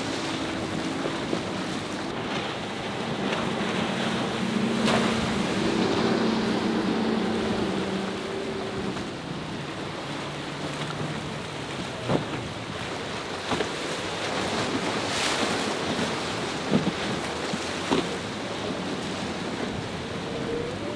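Outboard-powered center-console boats running through choppy water: a steady engine drone with rushing spray and waves, and wind on the microphone. In the second half come a few sharp smacks as the hulls come down on the waves.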